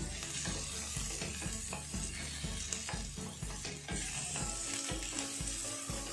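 Sliced onion and garlic sizzling in a stainless steel frying pan while a wooden spatula stirs them, with repeated scrapes and taps of the spatula against the pan.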